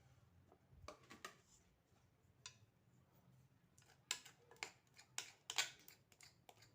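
Faint clicks and short scrapes of kitchen handling, most of them bunched about four to six seconds in.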